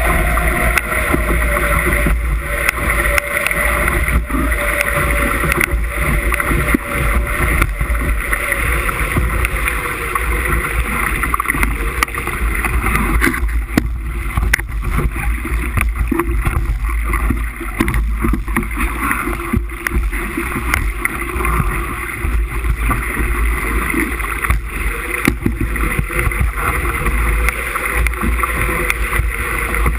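Wind buffeting the microphone over the rush of water past the hull of a Musto skiff dinghy sailing hard in gusty wind: a dense, steady noise with a heavy low rumble and frequent crackles.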